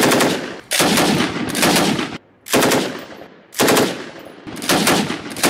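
Belt-fed machine gun fired from a bipod in about five bursts of automatic fire, each from under a second to about a second and a half long, with short pauses between.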